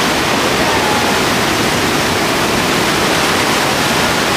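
Whitewater of a large rapid on the Colorado River, a loud, steady rushing of churning waves.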